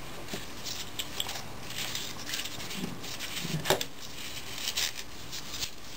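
Gloved hands working parts loose on a 4L80E transmission valve body: faint rustling with scattered light metal clicks and taps, the sharpest click about three and a half seconds in.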